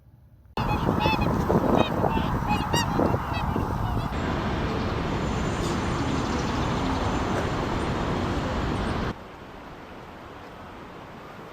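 A burst of repeated bird calls over a steady rushing noise, starting suddenly about half a second in and fading after about three seconds. The rushing noise carries on alone until it cuts off about nine seconds in.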